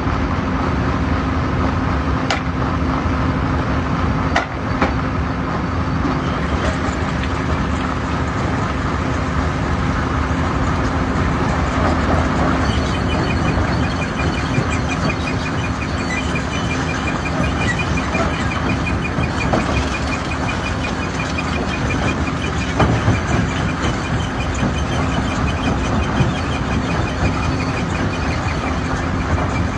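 Hammer-type stone crusher running: a loud, steady machine din with a held low hum. A few sharp knocks come through it, and a fast ticking starts about halfway through.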